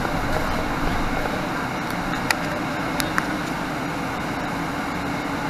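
Cabin noise inside a moving 2018 Nova Bus LFS diesel transit bus: a steady drone of engine and road noise, with a few short sharp clicks or rattles a little past the middle.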